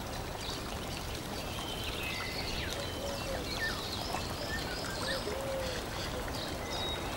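Steady running water like a stream, with scattered short bird calls over it.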